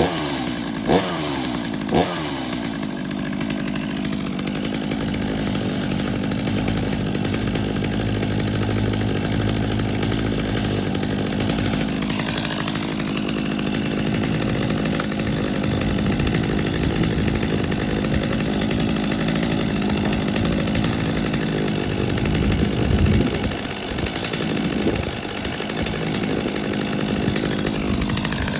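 New Stihl chainsaw running after a cold start, its throttle blipped three times in the first couple of seconds, each rev dropping back, then running on steadily.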